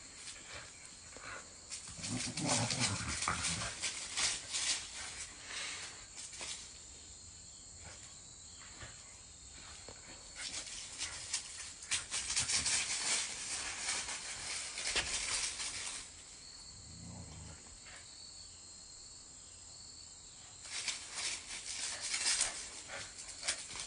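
Blue heeler dog worrying a big stick: bursts of crackling and scraping as it chews and drags the wood, with a couple of short low growls.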